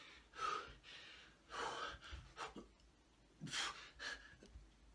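A man breathing hard and gasping, about four heavy, noisy breaths, worn out from exertion deep into a long set of push-ups.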